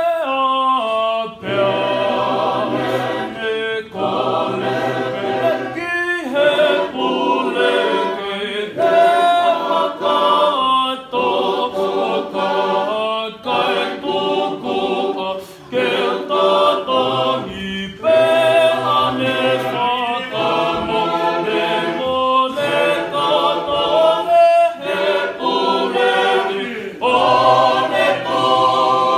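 Tongan church choir singing a hymn unaccompanied, several voices in harmony. It moves in short phrases with brief breaks between them.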